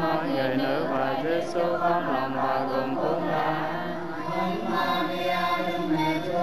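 A congregation of many voices chanting a prayer together in unison, in a sustained sung cadence.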